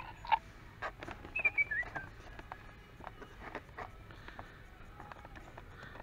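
Talking toy bird giving two short electronic chirps, the second lower, a little over a second in, among scattered soft clicks.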